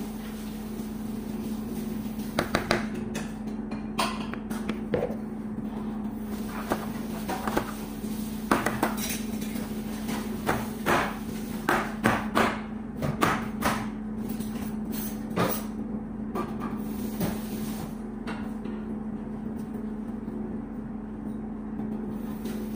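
Metal springform pan full of cheesecake filling knocked repeatedly on a granite countertop to settle and level the filling: a series of sharp knocks, thickest near the middle, over a steady hum.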